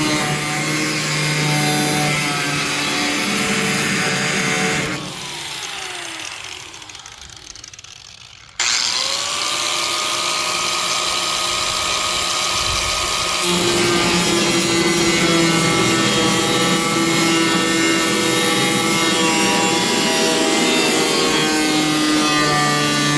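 Handheld power cutting tool whining at speed while cutting into the truck bed's sheet metal. About five seconds in it is let off and winds down in falling pitch. About three and a half seconds later it restarts with a rising whine and runs on steadily.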